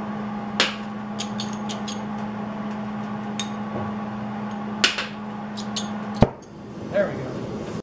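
Several sharp metallic clicks and taps over a steady electrical hum. About six seconds in there is a loud click and the hum stops.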